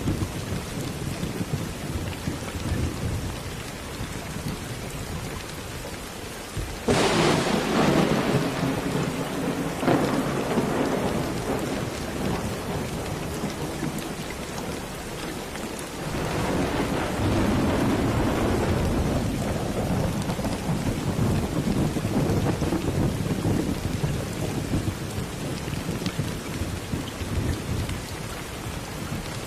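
Steady rain with two rolls of thunder: a sudden sharp clap about seven seconds in that rumbles on for a few seconds, and a second rumble swelling up a little past the middle before it dies back into the rain.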